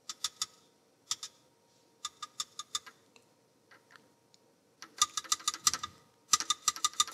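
Computer keyboard being typed on in short bursts of quick keystrokes, with pauses between the bursts; the two longest, fastest runs come in the second half.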